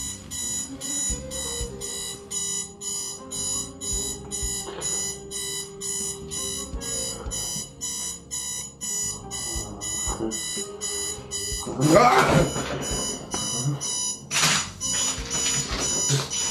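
Digital alarm clock beeping in a rapid, even run of high-pitched beeps. About fourteen seconds in, the beeping stops and there is a sharp thump as the clock is hit.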